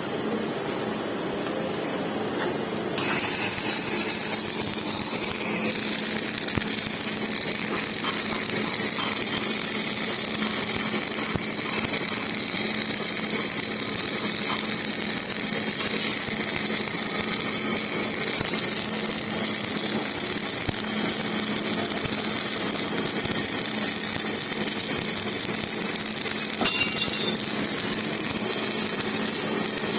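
Electric arc welding: over a steady machine hum, the arc strikes about three seconds in and a continuous crackling hiss runs on.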